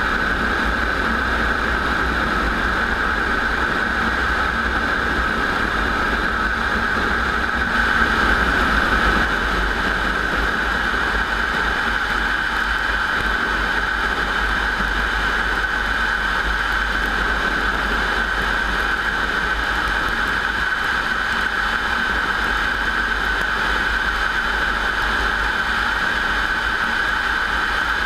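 Warbird piston aircraft engine running steadily at a constant pitch, with a brief swell about eight seconds in.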